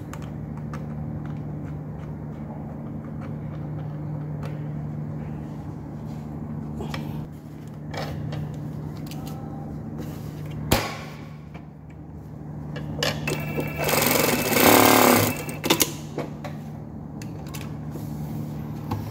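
Brother industrial single-needle lockstitch sewing machine with a steady low hum. About three-quarters of the way through it runs fast for a second or two, stitching a test seam, with sharp clicks just before and after the run. The seam is sewn to check the thread tension, which turns out to be properly set.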